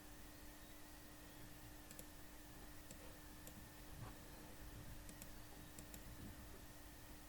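Near silence with about six faint, sharp clicks scattered through it, over a steady low hum.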